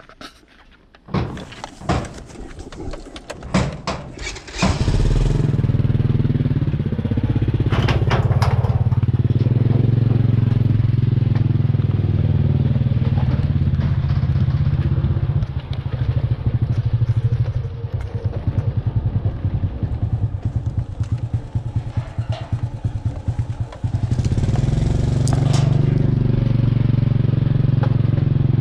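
Honda step-through motorcycle: a few knocks and clatter as it is handled, then the engine starts about five seconds in and runs as the bike is ridden along a dirt track. The engine note eases off in the middle and picks up again near the end.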